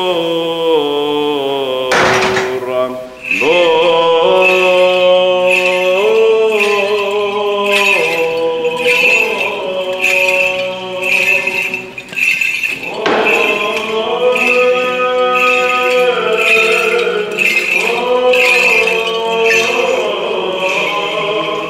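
Men's voices chanting in Orthodox church style over a steady held low note, the melody moving in long sustained phrases. From about three seconds in, a regular bright ringing stroke sounds about twice a second.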